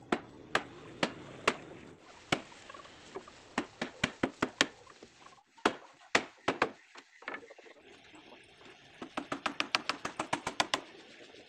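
A hammer striking nails into the wooden planks of a boat hull: a series of sharp knocks, spaced at first, then quick runs of several blows a second.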